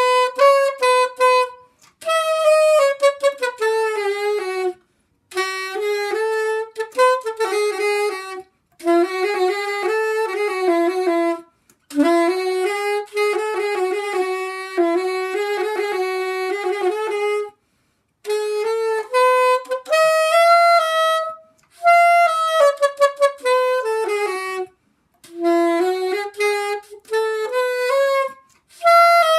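Soprano saxophone playing an unaccompanied solo melody in phrases of a few seconds each, with short breaks for breath between them.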